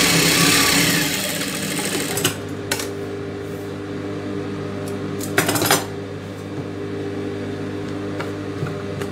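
Silk fabric rustling and a few light handling knocks as a stitched top is pulled out of an industrial sewing machine and turned over, over a steady hum. A loud rush of noise fills the first second and a half, and short knocks fall about two and a half seconds in and again near the middle.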